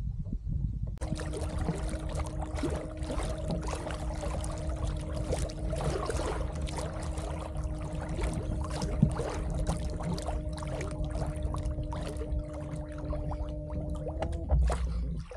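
Water trickling and splashing against a kayak, with a steady low hum running alongside that bends up slightly and stops about a second before the end.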